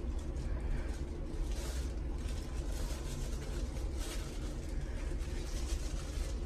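Steady low mechanical rumble, with brief soft rustles of plastic sheeting now and then.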